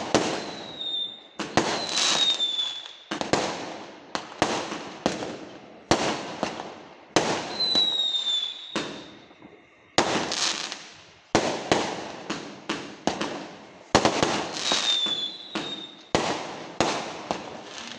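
Fireworks going off in quick succession: a sharp bang every second or two, each trailing off, with short falling whistles at several points.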